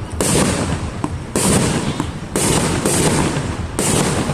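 Aerial fireworks going off in quick succession: about five bangs, roughly one a second, each cutting in suddenly and fading out in a hissing, crackling tail.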